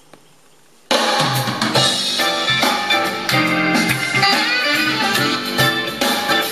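Faint tape hiss with a small click, then a rock song with drum kit and guitar cuts in abruptly about a second in and plays on steadily: a recorded tape playing back on a JVC KD-A11 stereo cassette deck.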